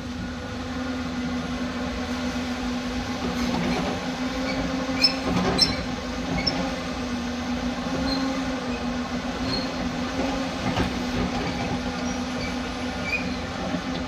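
Cat 255 skid steer's diesel engine running steadily under load while it works, with two sharp knocks about five seconds in.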